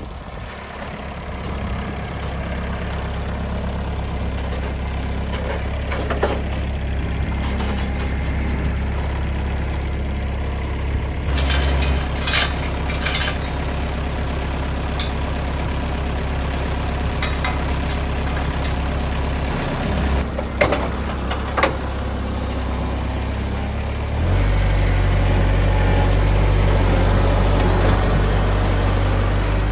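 Kubota compact tractor's diesel engine running steadily, with a few sharp metallic clanks; about three quarters of the way through the engine gets louder and stays up.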